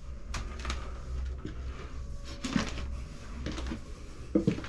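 Footsteps of a person walking up a staircase: a few knocks and scuffs over a low, steady rumble.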